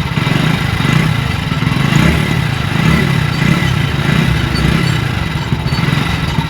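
Hero Splendor Plus BS6 motorcycle's single-cylinder four-stroke engine idling steadily. The rusted-through silencer has been welded, patched and refitted, and the exhaust sound problem is cured.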